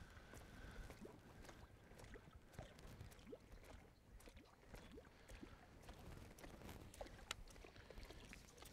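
Near silence: faint water sounds with scattered faint clicks.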